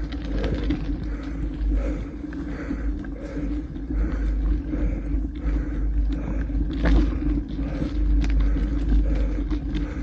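Mountain bike rolling along a gravel forest road: wind rumbling on the microphone, with steady tyre noise and frequent short rattles and clicks from the bike.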